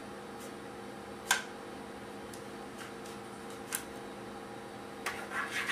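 A steady low hum with a few scattered light clicks or taps. The sharpest comes about a second and a half in, another near four seconds, and a run of small clicks starts near the end.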